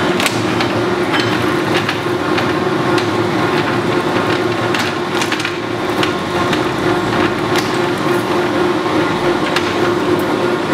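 Lodge & Shipley 2516 oil-country hollow-spindle lathe running under power: a steady mechanical hum with irregular clicks and rattles on top.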